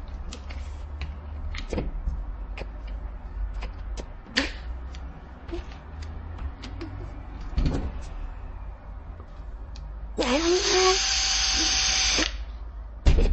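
Scattered light clicks and knocks, then near the end a small motor whirring with a loud hiss for about two seconds, its tone rising as it spins up before it cuts off suddenly.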